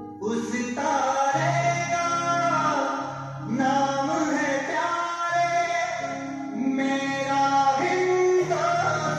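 Song playing for a dance: singing over instrumental backing, in phrases with short breaks about three and a half and seven seconds in.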